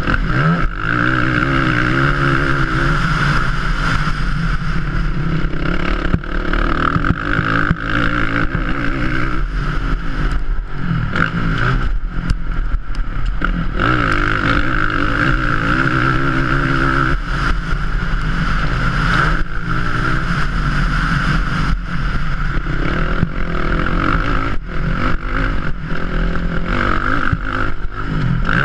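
Racing quad's engine at full racing pace, heard from on board, its revs rising and falling again and again, with brief drops as the throttle is shut and reopened.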